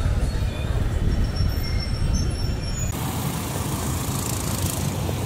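Road traffic: a steady low rumble of vehicle engines, turning suddenly brighter and hissier about three seconds in.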